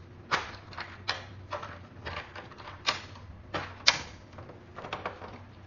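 Hard parts of an LED display cabinet being handled: a run of irregular sharp clicks and taps, the loudest about four seconds in.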